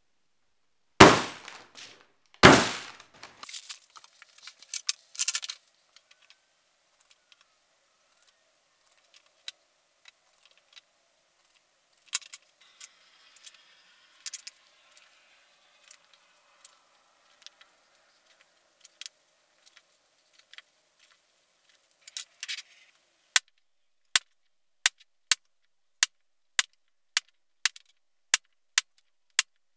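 Workbench handling sounds while scouring pads are unpacked, marked and punched. Two loud knocks come near the start, then small clicks and quiet rustling. In the last six seconds there is a run of sharp, evenly spaced clicks, about every two thirds of a second.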